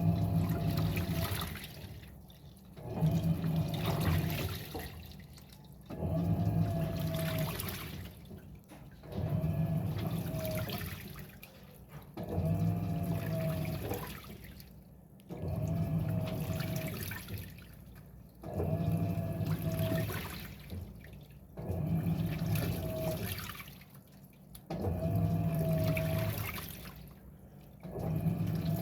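Electrolux 6 kg washing machine agitating a load of towels: water sloshing over a motor hum in strokes that come about every three seconds, quieter between strokes.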